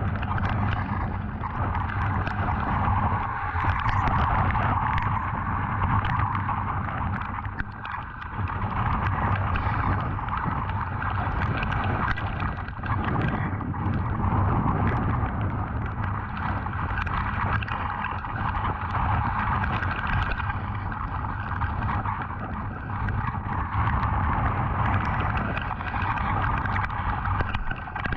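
Hurricane wind and rain buffeting a GoPro Hero 7's microphone: a steady rushing that swells and dips in gusts, with a crackle of raindrops hitting the camera.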